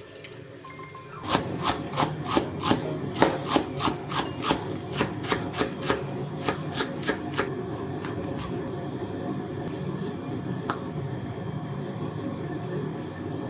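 Kitchen knife finely shredding cabbage on a cutting board: quick, even chops, about three a second, starting a little over a second in and stopping after about six seconds. A single knife cut follows a few seconds later.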